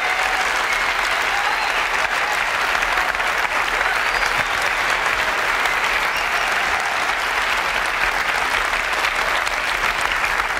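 Large audience applauding steadily for about ten seconds, a long ovation greeting a product announcement.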